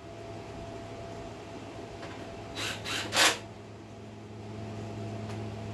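Three quick knocks close together, the last one loudest, about two and a half to three seconds in, as tools or parts are handled during a carburettor swap on a small engine. A steady low hum sounds underneath.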